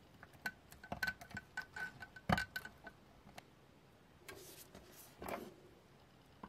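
A quick run of faint, light clicks and clinks, small hard objects tapping together, with a thin ringing note behind them and one louder click a little after two seconds in; then two soft rustles.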